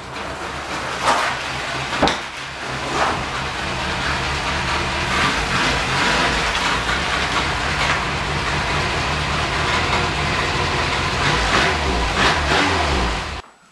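Renault 5 car engine running steadily, with a few sharp knocks in the first few seconds; the sound cuts off suddenly at the end.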